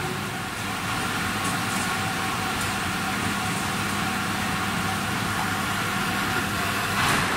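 A five-station filling machine for 5-gallon water bottles running, a steady mechanical hum with a constant hiss. About seven seconds in there is a short, louder hiss.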